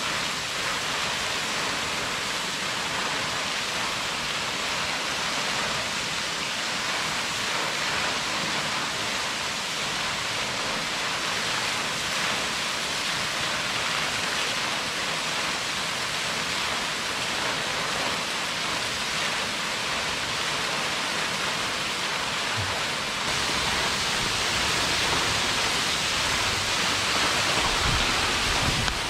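White Falls, a waterfall dropping free from a sandstone overhang onto a boulder and pool, making a steady rushing splash. It gets slightly louder about three quarters of the way through.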